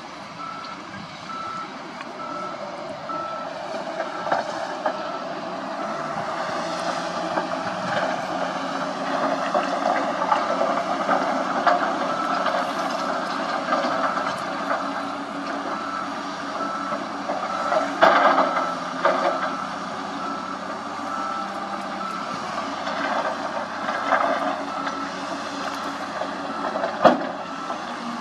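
Dump truck's reversing alarm giving evenly spaced beeps over its diesel engine, which runs harder as the tipper body is raised to dump a load of dirt. Sharp knocks and clatter come about two-thirds of the way through and again near the end.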